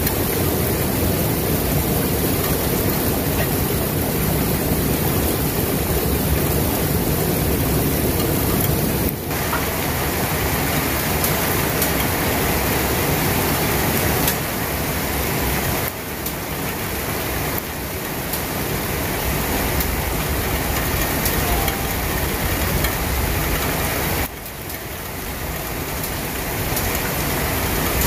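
Steady rain, a dense even rush of noise with no breaks in its texture. It dips briefly in level about a third of the way in, again a little past halfway, and again near the end.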